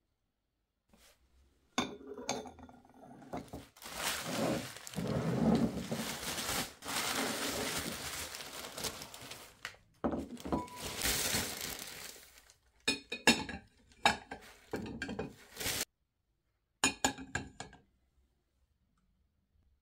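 Paper packing wrap rustling and crinkling as ceramic bowls are unwrapped, then the bowls clinking against each other a number of times as they are stacked near the end.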